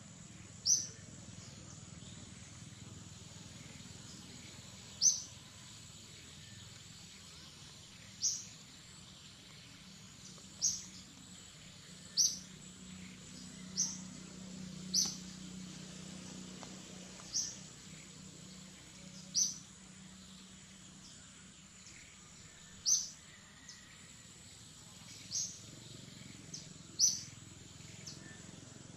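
A bird repeating a short, sharp, high chirp about a dozen times at irregular gaps of one to four seconds. A thin steady high insect whine and a low forest hum run underneath.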